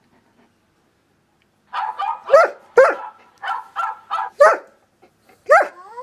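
Dog barks: a quick run of about eight sharp, loud barks beginning about two seconds in, with one more near the end.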